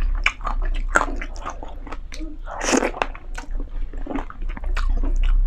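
Close-miked mouth sounds of someone chewing a mouthful of pancit chami noodles: wet smacks and small clicks, with one louder, noisy swish about two and a half seconds in.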